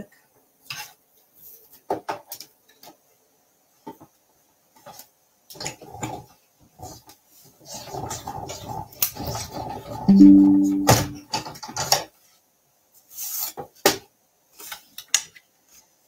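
Manual die-cutting machine in use: scattered clicks and clatter of the cutting plates and metal die being handled, then a denser stretch of clatter as the plate sandwich is cranked through the rollers, with a short, loud squeak about ten seconds in.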